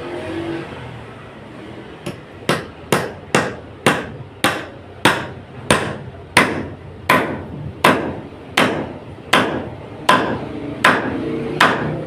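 A hammer striking repeatedly in a steady rhythm, one to two blows a second, starting about two seconds in.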